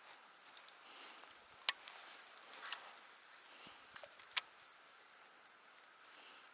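A few sharp clicks over a faint hiss, the loudest a little under two seconds in and a close pair about four seconds in, from rod and reel handling as a jerkbait is jerked and retrieved.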